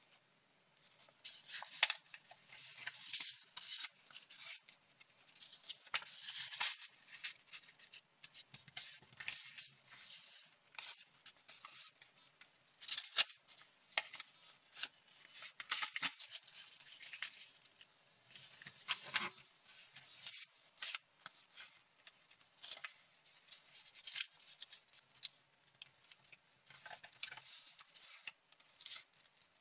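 A square sheet of origami paper being folded and creased by hand: irregular rustling and crinkling of the paper, with many short, sharp crackles.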